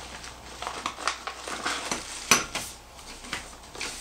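Small plastic bags of frame-kit hardware crinkling and being set down on a wooden tabletop, with irregular clicks and clatter from the parts inside and one sharper knock about two seconds in.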